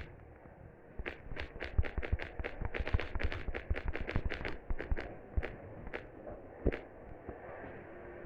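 A rapid, irregular series of sharp taps or clicks, a few a second, that thins out to a few spaced clicks after about five seconds.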